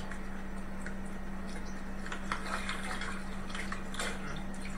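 Water splashing and sloshing in short irregular strokes as a man wades and works his arm in a flooded mud hole, played back through a TV speaker, over a steady hum.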